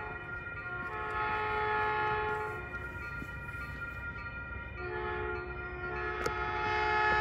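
Approaching Caltrain locomotive sounding its air horn, a chord of several notes at once, in long blasts. One blast comes about a second in and a longer one from about five seconds in.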